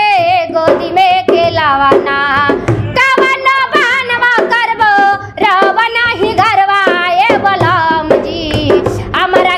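A young woman singing a Bhojpuri song in a high, wavering voice, with drum strokes beneath it.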